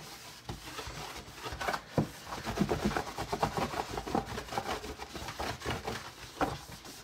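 Damp paper towel rubbing and scrubbing over a plastic game tray in quick, uneven strokes, with a sharp knock about two seconds in.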